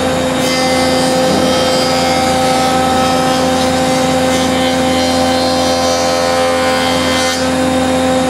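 Delta DJ-30 jointer running with a steady whine while a board is fed edge-down along the fence over the spinning cutterhead. The hiss of the knives cutting the edge starts about half a second in and stops about seven seconds in.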